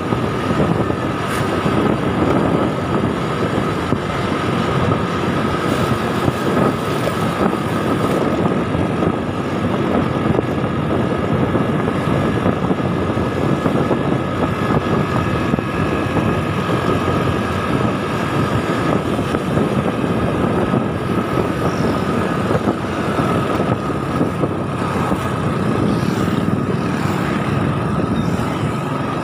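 Motor scooter riding along at a steady speed, its engine running under a steady rush of road and wind noise, with a thin high-pitched whine held throughout.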